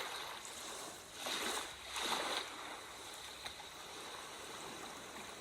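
Sea waves washing in: a steady hiss of surf with two louder swells, one a little over a second in and another about two seconds in.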